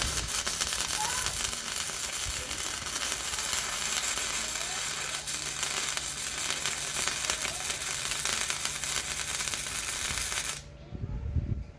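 Electric welding arc crackling steadily as a bead is run on steel tubing, cutting off about a second before the end.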